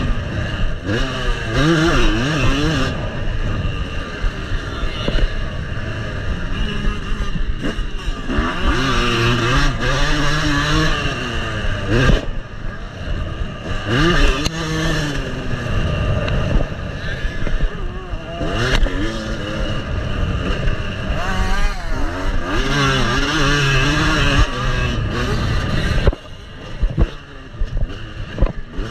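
Yamaha dirt bike engine revving up and dropping back over and over as the rider accelerates and backs off around a motocross track. The throttle comes off near the end and the engine note turns choppier and quieter.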